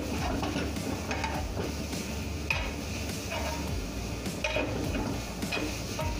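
Chicken and vegetables sizzling in a wok while a metal spatula stirs and scrapes them, with several sharp clinks of the spatula against the pan.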